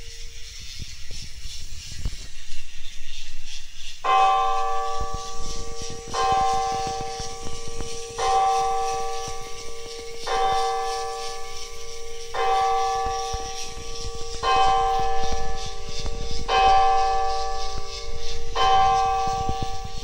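Church-bell strikes played through a small portable speaker in time with a motorised LEGO Technic bell tower, struck about every two seconds from about four seconds in, each ringing on until the next. Low knocks and rumble sound underneath.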